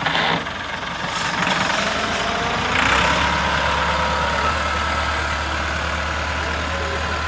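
Massey Ferguson tractor's diesel engine running steadily, getting louder about three seconds in as the tractor drives off across loose sand.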